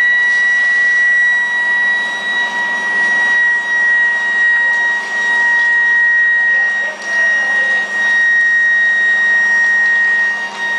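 175 kW induction melting furnace running under power, giving a loud, steady high-pitched whine with a weaker lower tone beneath it, over a hissing machine noise.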